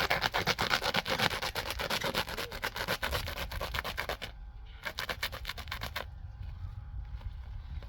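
Rapid rubbing or scraping strokes, many a second, which break off about four seconds in, resume briefly, then fade to fainter strokes.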